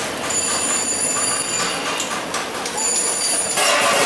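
Busy street noise, with a steady high-pitched whine that drops out and returns a few times, and a brief loud rush of noise near the end.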